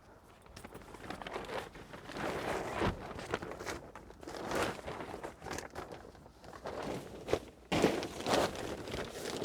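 Irregular rustling and crinkling of a bivvy groundsheet's fabric being handled and laid in, with a few sharper crackles.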